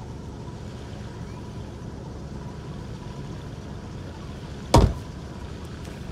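V6 Camaro engine idling with a steady low rumble through its quiet aftermarket exhaust. A single loud thump about four and a half seconds in.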